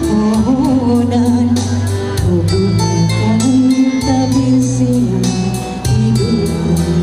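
A woman singing a Malay song into a microphone over amplified instrumental accompaniment with a steady beat.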